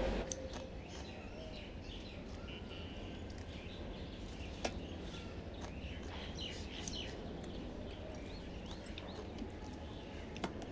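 Quiet background ambience with faint birds chirping intermittently, and a single soft click about halfway through.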